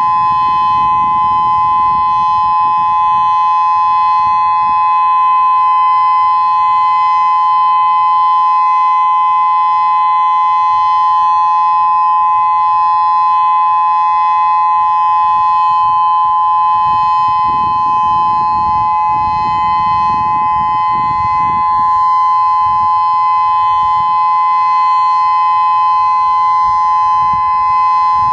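Federal Signal Modulator 4016 electronic outdoor warning siren sounding its steady dual-tone Alert, one continuous unwavering tone with no rise or fall. A low rumble swells under it twice.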